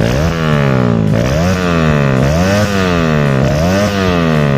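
Bored-out single-cylinder engine of a 2011 Yamaha Byson (FZ16) with a Scorpio piston, revved up and let fall back repeatedly, about once a second, through a short DBS aftermarket exhaust.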